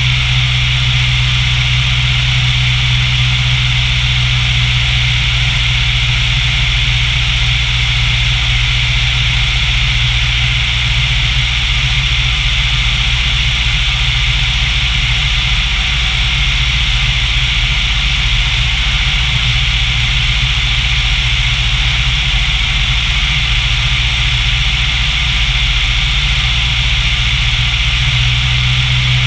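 Light single-engine propeller airplane's engine and propeller droning steadily in flight.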